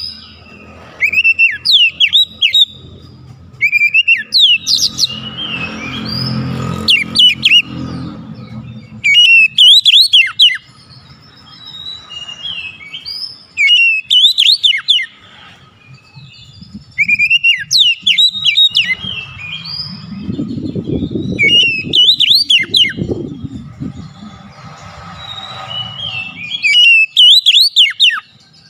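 Oriental magpie-robin (kacer) singing loud phrases of fast rising and falling whistles, a burst every two to three seconds. A low rumble passes behind the song twice.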